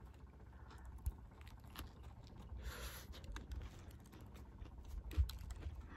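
A person chewing a sandwich up close, with soft crunches and small mouth clicks, a brief rustle about three seconds in and a single knock near the end.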